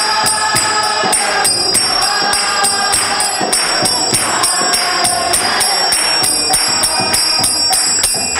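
Devotional kirtan: a group of voices singing together over small hand cymbals (karatalas) that clash in a steady, quick rhythm and ring on between strokes.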